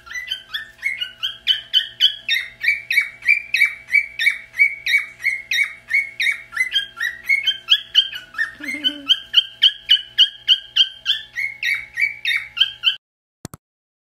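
Cockatiel chirping rapidly and steadily, about four short chirps a second alternating between two pitches. It cuts off abruptly near the end, followed by a single click.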